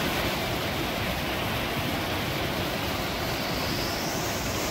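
Mountain creek water rushing steadily over rocks into a pool.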